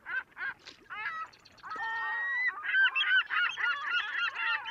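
Birds honking: single evenly spaced honks at first, then, from about two seconds in, many calls overlapping as a flock.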